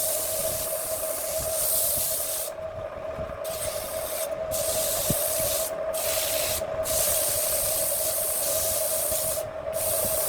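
Handmade wood lathe running with a steady hum while the spinning wood is worked, a rubbing hiss that lets up briefly about five times as the contact is lifted.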